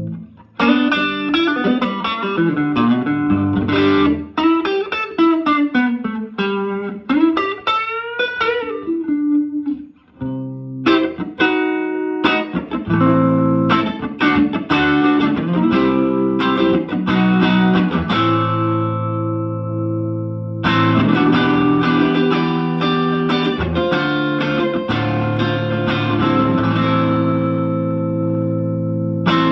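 Electric guitar played through a Silvertone 1484 Twin Twelve tube amp with two 12-inch speakers, with a warm, slightly driven tone. The first part is a lead line of bent, wavering notes. After a brief gap come chords that are left to ring out, and a new chord is struck about two-thirds of the way in.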